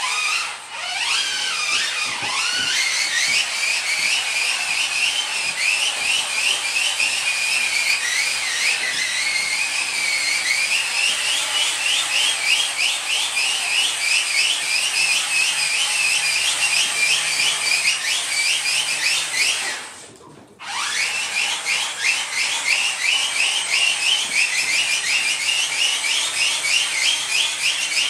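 Takara Tomy Home Kite toy making a high, whistling whir as its blades are spun by hand. The pitch climbs as it spins up, then wavers. About 20 seconds in it winds down and stops for a moment, then spins up again.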